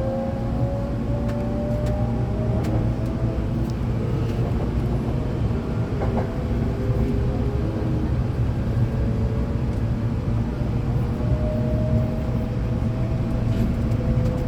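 Hankyu 8200-series electric train running, heard from inside the car: a steady low rumble of wheels on rail, with the faint whine of the Toshiba GTO-VVVF inverter and traction motors rising slowly in pitch near the start and again near the end.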